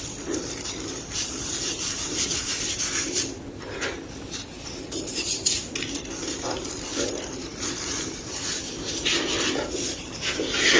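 A block of gym chalk being crushed and rubbed, giving a dry, crackly crunching and crumbling with many irregular small crackles and a brief lull partway through.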